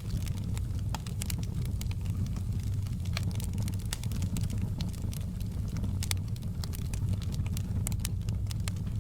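Wood fire burning in a fireplace: a steady low rumble of flames with frequent small crackles and pops.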